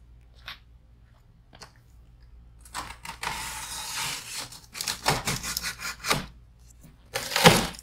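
Box cutter slicing down the corners of a corrugated cardboard box. Small scrapes come first, then a long rasping cut about three seconds in, then a run of shorter cuts and tears, the loudest near the end.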